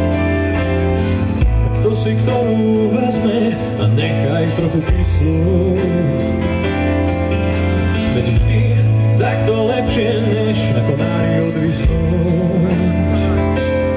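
A band playing live, with accordion, electric guitars, bass and drums, and a voice singing the melody.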